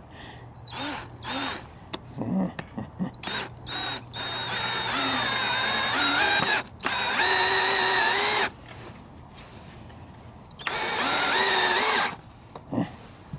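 Cordless drill driving wood screws through a small brass hinge into a wooden door frame: a few quick trigger blips to start the screws, then three longer runs of the motor whining, its pitch wavering as the screws bite and seat.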